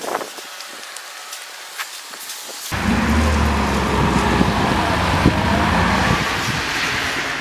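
Vehicle engine running close by, a steady low hum with broad rushing noise, starting abruptly about two and a half seconds in after a stretch of quieter outdoor hiss.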